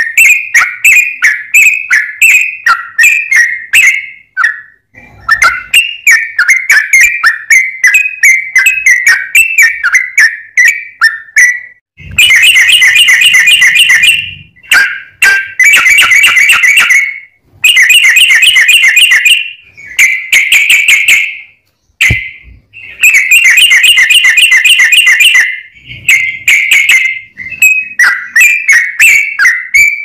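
Yellow-vented bulbul singing loudly: quick bubbling phrases of short notes, broken in the middle by several dense chattering runs of about two seconds each.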